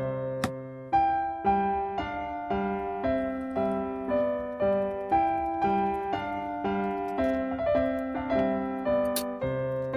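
Background music: a light piano melody, one note about every half second, with a brief click about half a second in and another near the end.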